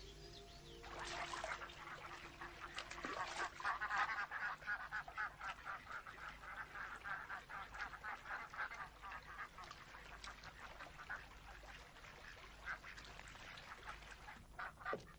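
A flock of waterfowl calling in a rapid, dense chatter, loudest about four seconds in and thinning out after about twelve seconds.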